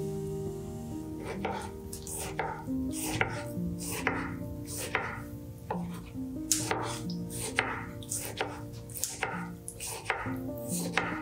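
Chef's knife slicing and dicing tomatoes on a wooden cutting board: a run of sharp knife taps on the board, about two a second and unevenly spaced, over soft background music.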